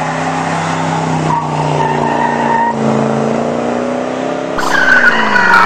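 Pickup truck sound effect: the engine revs and the tyres squeal as the truck peels away, the engine note dropping off as it goes. Near the end a louder locomotive whistle starts blowing over it.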